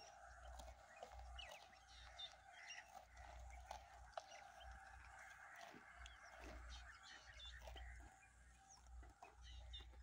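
Faint outdoor ambience: small birds chirping and calling throughout, with low wind rumble on the microphone that comes and goes.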